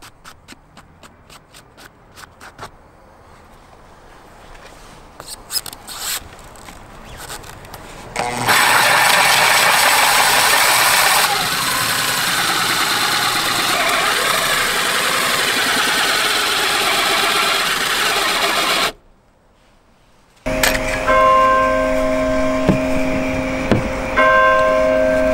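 Cordless Makita drill spinning a large hole saw through a fibreglass boat deck: a loud, steady cutting noise that starts about eight seconds in and lasts about ten seconds, after a stretch of faint clicks and ticks. It cuts off suddenly, and music with held tones comes in near the end.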